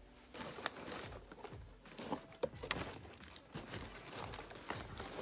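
Soft rustling and scattered crinkles as a folded cotton T-shirt and its wrapping are handled and opened out.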